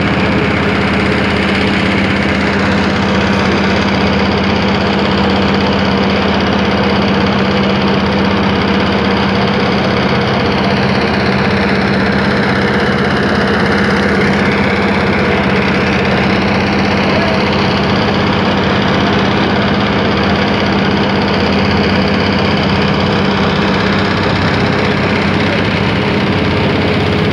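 An engine running steadily at a constant speed, loud and close, with a steady low hum that does not change.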